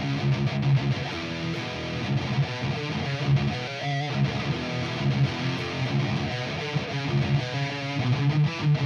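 Electric guitar played through an SLO-clone tube amp boosted by a Keeley-modded Maxon OD808 overdrive, close-miked with a Shure SM57: a riff of repeated low notes.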